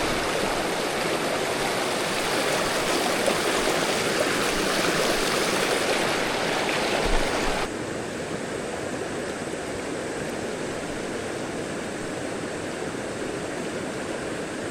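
Steady rush of a mountain river flowing over rocks in a riffle. About halfway through it suddenly drops quieter and duller, losing its hiss.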